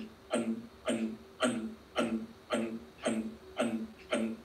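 A woman doing Kapalabhati breathing: sharp, forceful pumping exhalations, each with a short voiced 'and', in a steady rhythm of a little under two strokes a second, about eight in all.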